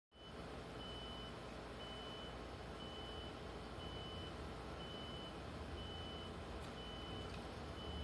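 A faint high electronic beep repeating about once a second, each beep about half a second long, over a low steady hum.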